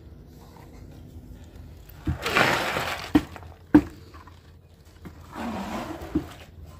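Buckets of wet concrete being emptied into wooden beam formwork: a rush of sliding, sloshing concrete, then sharp knocks of a bucket against the timber, and a second, weaker pour near the end.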